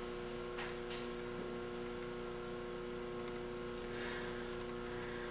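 Steady electrical hum made of a few constant tones, with a couple of faint ticks about a second in.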